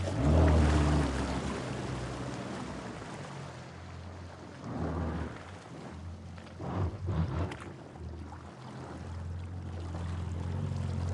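Water sloshing and splashing in swells a few seconds apart, over a steady low rumble.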